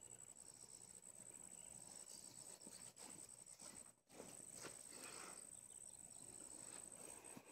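Faint, steady high-pitched insect trill with a slight pulse, with some soft rustling a little past the middle.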